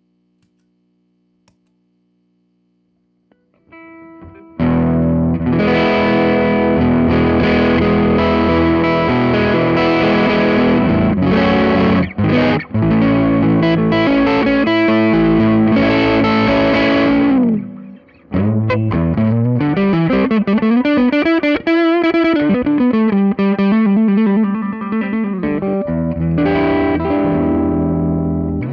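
Electric guitar played through an MXR Custom Badass '78 Distortion pedal: heavily distorted chords and riffs, then a lead line with bent, wavering notes. It starts after about four seconds of near silence broken by a few faint clicks, and pauses briefly about halfway through.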